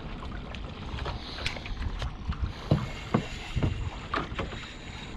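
Wind buffeting the microphone aboard a small skiff on choppy water, with a few irregular knocks and slaps from around the boat, most of them in the middle of the stretch.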